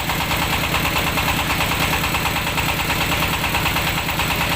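Mobile rice milling machine running: its engine runs steadily with a fast, even pulse, under a steady hiss from the mill.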